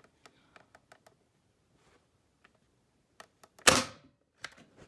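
Nerf Rival Edge series blaster: a scatter of small plastic clicks as it is handled and primed, then one loud sharp snap of a shot about three and a half seconds in.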